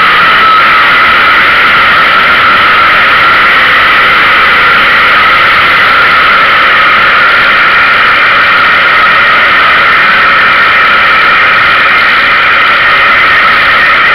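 Dirt-track street stock race car's engine running hard at racing speed, heard onboard from the car's rear deck: loud and steady, with no let-up.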